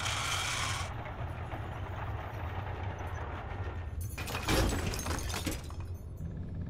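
Low, steady mechanical rumble of a large tracked robotic machine. There is a short hiss near the start, and about four seconds in a burst of metal movement with a heavy thud as the machine's arm and bucket shift.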